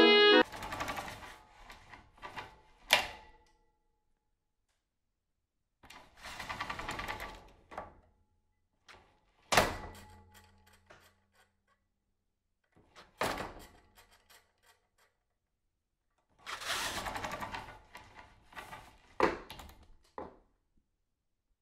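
A few short bursts of clatter, several ending in a sharp knock, separated by dead silence.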